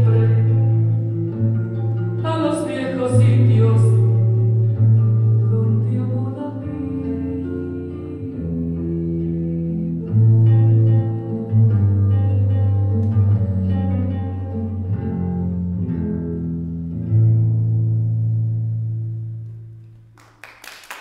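A slow song with sustained low bass notes and a melody line, fading out near the end. Audience applause breaks out just before the end.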